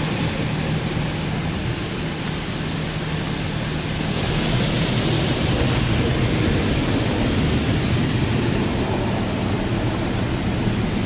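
Water jets from a Belanger Kondor KL2 touchless car wash's spray arm hitting the car's glass and body, heard from inside the car: a steady rushing hiss that grows louder and brighter about four seconds in, over a low steady hum.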